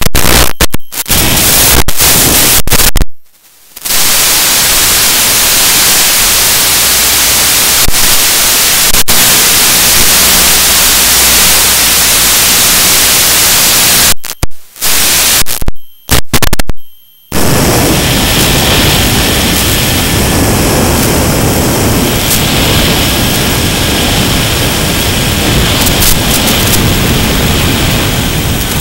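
Loud hiss of static from an analog FPV radio link, cutting out abruptly several times. About two-thirds through it gives way to the steady drone of the Mini Skywalker's electric motor and propeller with wind rush, heard through the onboard camera's microphone.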